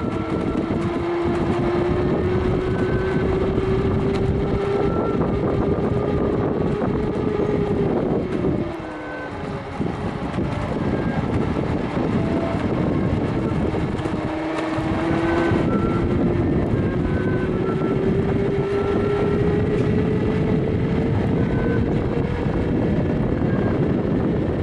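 A 250 W 24 V brushed DC motor in a DIY friction drive whining as its roller drives the tricycle's tyre, over steady road noise. The whine climbs slowly in pitch as speed builds, falls away about eight seconds in as the power eases off, and climbs again from about fourteen seconds in.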